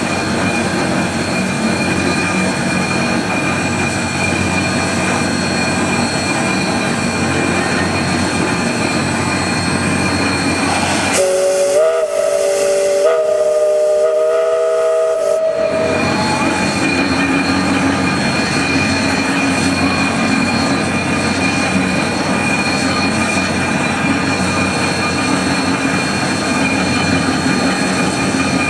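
1913 Savannah Central 0-4-0 steam locomotive #30 blowing its chime whistle, several notes sounding together, for about five seconds midway. The pitch steps up slightly partway through. Around it is the steady noise of the locomotive running.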